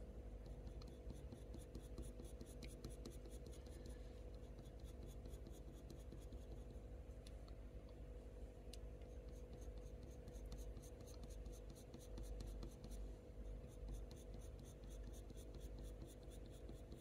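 Faint scratching of a Faber-Castell Polychromos coloured pencil on hot-press watercolour paper. It comes as quick runs of short, flicking strokes, laying fur texture.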